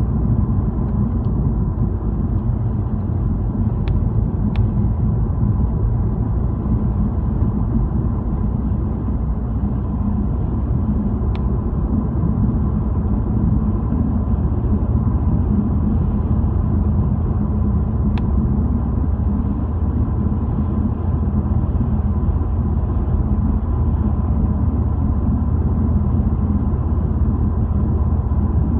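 Steady low rumble of a car's engine and tyres on the road, heard from inside the moving car, with a few light ticks.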